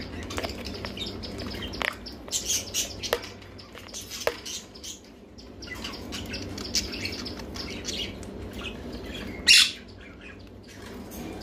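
Ringneck parakeet's beak tapping and nibbling at the recording phone, a run of small sharp clicks, mixed with short bird chirps. There is one loud sharp burst about nine and a half seconds in.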